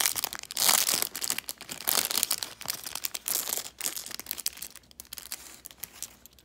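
Small clear plastic bag crinkling as it is handled and emptied. The rustle is loudest over the first few seconds, then thins to occasional soft crackles.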